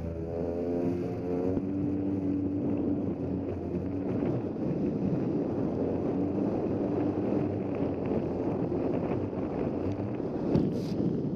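Polaris SL750 personal watercraft's two-stroke engine running at speed, its tone clear for the first couple of seconds and then buried under the rush of water spray and wind on the microphone. A short loud splash about ten and a half seconds in as the hull meets the water.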